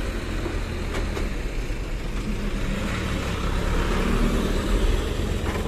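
Diesel truck engines running steadily. The Nissan Diesel CWB370 dump truck is manoeuvring, and the sound grows a little louder about four seconds in as a second truck comes close.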